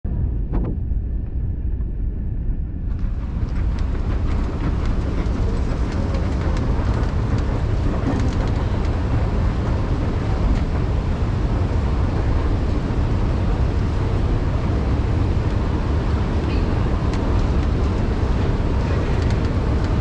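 Steady low rumble of Underground station escalators running, with the hiss of the station concourse; the higher, hissier part of the sound comes in about three seconds in.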